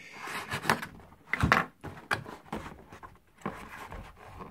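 Handling noises as the parts and accessory pack of a microphone isolation shield are opened and moved about: a string of irregular knocks and rustles, the loudest about one and a half seconds in.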